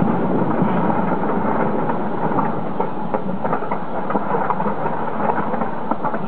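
Distant fireworks barrage going off continuously: a steady rumble with many small crackling pops scattered through it.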